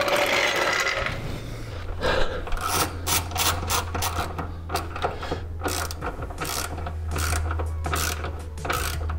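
Hand socket ratchet on a long extension clicking in quick, uneven runs as it spins subframe bolts in, the bolts being run in snug before final torquing.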